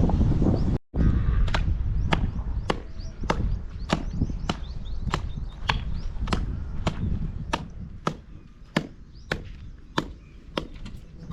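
Steady chopping, a sharp knock about every 0.6 seconds, starting about a second and a half in. Wind rumble on the microphone at the start fades as the chopping goes on.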